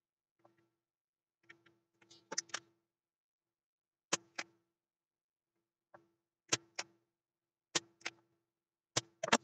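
Spring-loaded desoldering pump (solder sucker) snapping as it fires on the solder joints of a circuit board: sharp clicks, mostly in quick pairs, about four times, with fainter clicks between.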